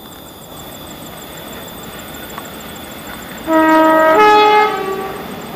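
Diesel locomotive horn sounding one blast about three and a half seconds in, lasting about a second and a half and stepping from a lower note to a higher one partway through.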